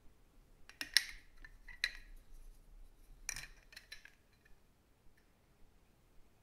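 Hard plastic wheel rims on their moulded parts tree clacking and clicking against each other as they are handled: a sharp cluster of clicks about a second in, another near two seconds, and a few more around three to four seconds, then quiet.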